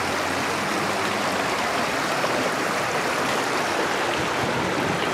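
Fast-flowing creek churning over its bed below a footbridge railing: a steady, even rush of water.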